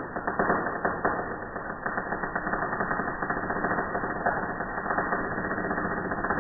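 Welding arc crackling and sputtering steadily, a dense run of rapid fine clicks with no break.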